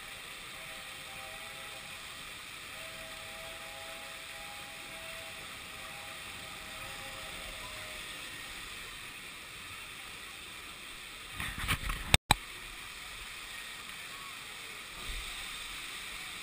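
Steady hiss of fountain jets spraying water around the Dumbo ride's central hub. A short rattle of knocks about eleven and a half seconds in is followed by a momentary dropout of the sound.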